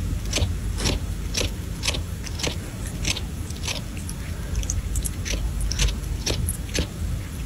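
Sphynx cat sucking and chewing on the tip of its own tail, making wet smacking clicks about twice a second over a low steady rumble.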